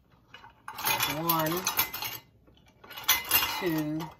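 A spoon scraping and clinking against a small ceramic bowl in two spells, scooping out chopped green onions, with a short voiced hum during each.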